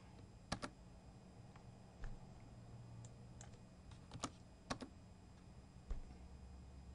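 A few scattered keystrokes on a computer keyboard, entering numbers into fields: about six separate clicks a second or so apart.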